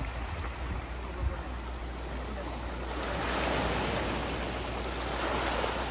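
Small sea waves washing onto a pebble shore, with splashing as people wade in pushing a paddle board; the wash grows louder about halfway through.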